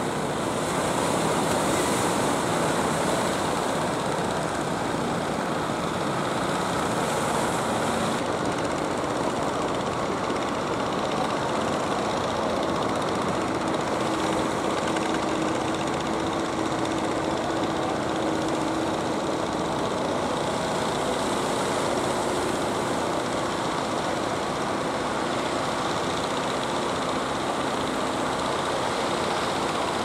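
Steady rushing of surf and wind under the running engines of motorized wooden fishing boats; a steady engine hum stands out around the middle.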